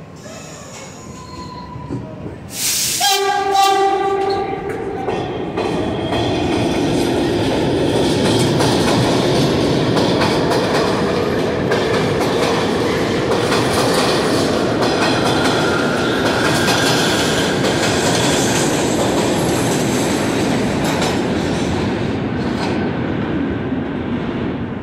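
A train sounds a short horn blast about three seconds in, then passes close by with a steady loud rumble of wheels on the rails that runs on until near the end.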